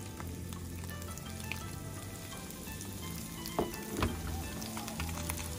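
Cornstarch-coated whole fish sizzling steadily in a pan of hot oil. Around the middle come a couple of sharp knocks as a second fish is laid into the pan.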